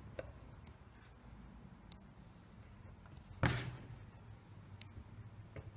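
Chip-carving knife cutting into a wooden block: a few faint scattered ticks as the blade slices out chips, and one louder brief scrape of a cut about three and a half seconds in.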